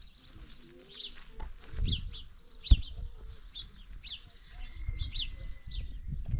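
A bird calling over and over with short, falling high chirps, about one a second, over low rumbling noise. A sharp knock stands out about two and three-quarter seconds in.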